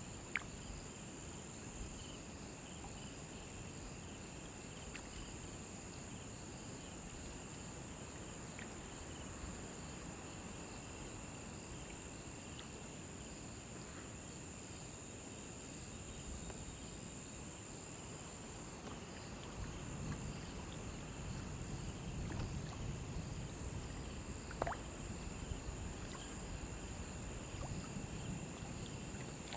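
Crickets chirping in a steady high-pitched chorus, with a second, lower trill beneath it. A low rumble of river water swells in the last third, and a couple of sharp clicks stand out.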